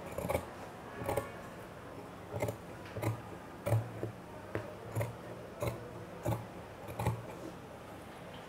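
Large tailor's shears cutting heavy khaki cloth: a steady run of about ten snips, roughly one every two thirds of a second, stopping shortly before the end.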